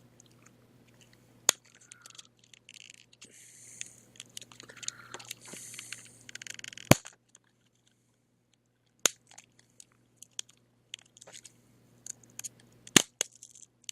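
Plastic casing of a laptop battery pack being pried open along its seam: scraping and crunching of plastic, with sharp snaps as the case gives way, the loudest about seven seconds in and again near the end.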